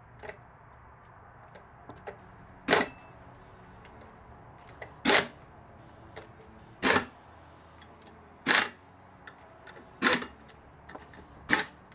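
Air impact wrench on a low power setting running the rear sprocket nuts down until they seat, in six short bursts about one and a half to two seconds apart, with light clicks between.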